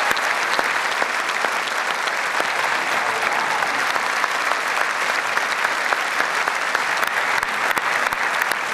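Large audience applauding steadily, a dense, even patter of many hands clapping, after an award acceptance speech.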